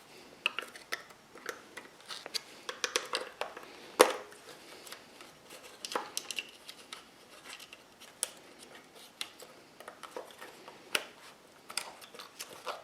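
Irregular small clicks, taps and scrapes of a screwdriver and fingers prying the retaining clip off the lock cylinder of a door handle, with a sharper click about four seconds in and another about six seconds in.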